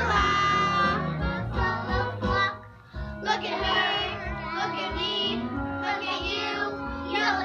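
Voices singing a song over musical accompaniment. The sound drops away briefly about two and a half seconds in, then the singing picks up again.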